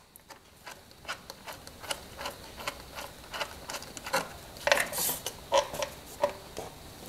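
Hands undoing a bolt and taking a cardboard template off a steel engine mount: light, irregular clicks and taps with cardboard scraping and rustling, and a few sharper knocks with a short ring in the second half.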